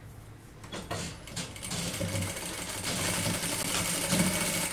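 Industrial sewing machine stitching a fabric tab onto the end of a zipper. After a second or so of quiet handling with a few clicks, it starts up and runs steadily, growing a little louder.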